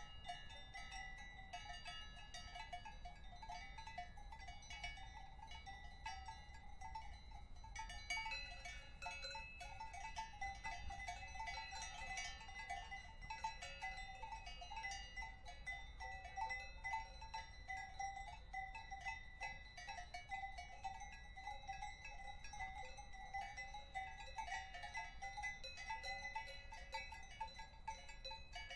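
Many cowbells clanking irregularly and overlapping, growing denser and a little louder from about eight seconds in.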